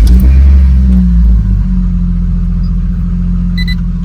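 Toyota Chaser's 1JZ-GTE turbocharged straight-six just after starting, running at a raised fast idle for about a second and a half before settling to a steady idle. This is its first start after an oil change.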